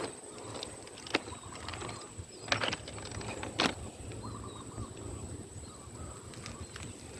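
Rural outdoor ambience: small birds chirping faintly over a steady high-pitched whine, with three sharp clicks about one, two and a half, and nearly four seconds in.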